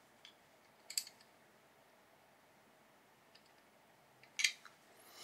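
Hex key turning a small screw in a 3D-printed extruder housing: a few light clicks about a second in, and a short cluster of clicks near the end.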